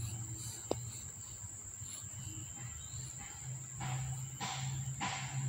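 Steady high-pitched insect chirring, with a low hum underneath that grows stronger about three and a half seconds in. A few brief soft rustles come near the end.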